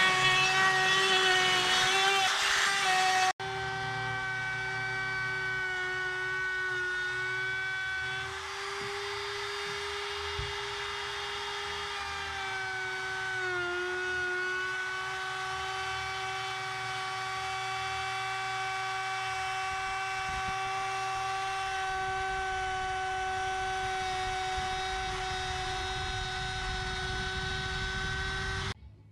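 Ridgid compact trim router running at a steady high whine while flush-trimming the edge of new plywood laminated to a boat transom. The pitch dips briefly near the middle, and the router cuts off near the end.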